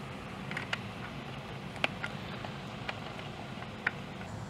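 A handful of short, sharp plastic clicks and taps, scattered and irregular, as a fog light housing is handled and seated against a plastic bumper cover, over a steady low hum.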